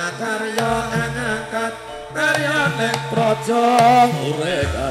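Javanese gamelan music playing, with a wavering melodic line that comes in louder about two seconds in and deep low notes entering near the start and again near the end.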